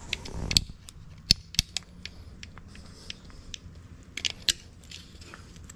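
Hard plastic being twisted and snapped with needle-nose pliers as the connector housing is broken off a factory speaker's trim ring: irregular sharp cracks and clicks, with a cluster of louder snaps about four seconds in.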